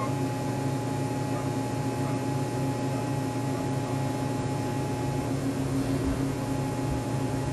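Arc welder running: a steady electrical hum with a hiss over it, and a thin high tone that stops about five seconds in.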